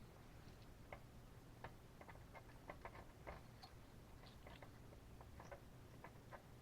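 Faint, irregular small ticks and scrapes of a flat blade scraping old gasket material off a carburetor flange, a few light clicks a second.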